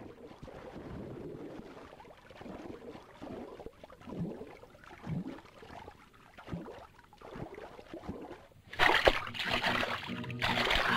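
Muffled underwater ambience of a swimmer gliding beneath the surface of a pool, with a few separate bubbling gurgles. About nine seconds in, loud splashing of a swimmer stroking at the surface takes over.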